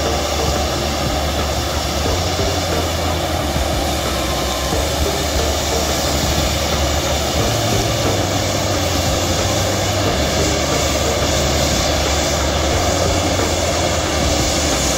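Bamboo-tube festival fireworks of the Toyohashi tezutsu kind, burning and spraying a jet of sparks with a steady, loud rushing noise and no bangs.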